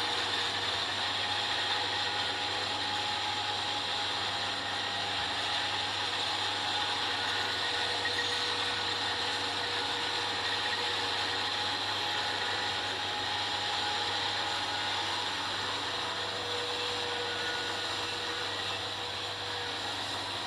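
Kubota combine harvester running steadily while harvesting rice: a continuous mechanical noise with a few held tones in it, unchanging throughout.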